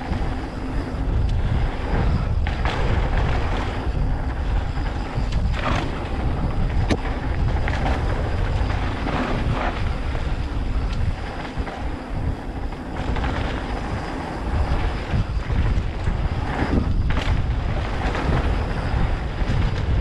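Mountain bike riding a dirt trail: steady wind buffeting the microphone and tyre noise, with a few sharp knocks and rattles from the bike over bumps.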